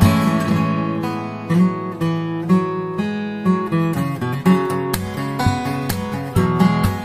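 Background music: an acoustic guitar playing with plucked and strummed chords, no vocals.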